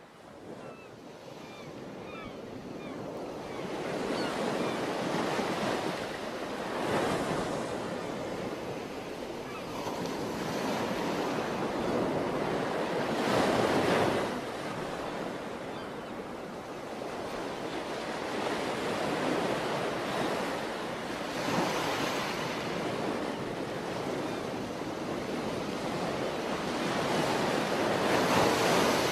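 Ocean surf washing in and out, swelling and ebbing every few seconds. It fades in at the start.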